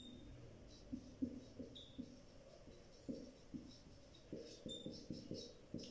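Dry-erase marker writing on a whiteboard: faint, short squeaks and scratches of the pen strokes, coming irregularly with brief pauses between words.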